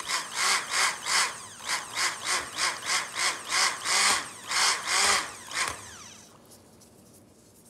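Electric stick blender pulsed on and off in quick short bursts, about two to three a second, blending cold process soap batter in a stainless steel pot. The motor whirs up and down with each pulse and stops a little over two-thirds of the way in.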